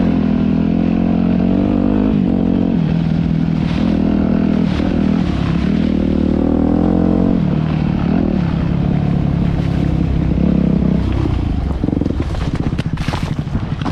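Off-road motorcycle engine running under load, its pitch dropping and climbing again several times as the throttle is worked. In the last few seconds the engine note breaks up into uneven clattering and scraping.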